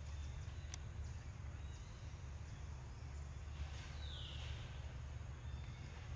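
Outdoor ambience: a steady low rumble with a faint click about a second in and a brief falling hiss about four seconds in.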